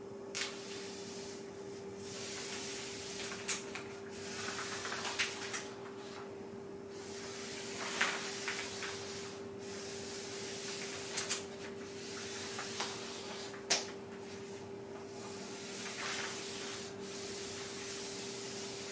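Charcoal sticks dragged across a large sheet of paper in sweeping strokes: a scratchy hiss broken by several sharp ticks, over a steady hum.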